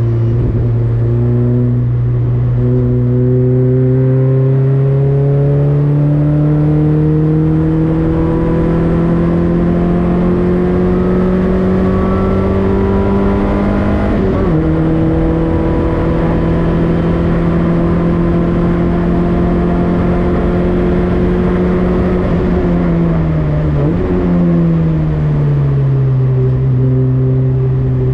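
Citroën Saxo race car's four-cylinder engine pulling under load, its pitch climbing slowly for a long stretch. About halfway through it drops sharply on an upshift and holds fairly steady. Near the end the revs ease off, with a quick drop and jump back up as it changes gear.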